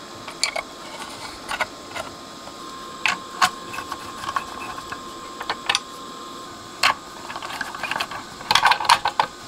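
Small metallic clicks and ticks as a nut driver is fitted to and turns the mounting nut of a headphone jack socket on an aluminium amplifier front panel, with a quick run of clicks near the end.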